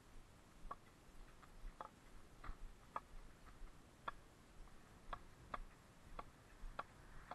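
Faint, irregular ticks, one or two a second, over near silence, made while walking with a body-worn GoPro camera.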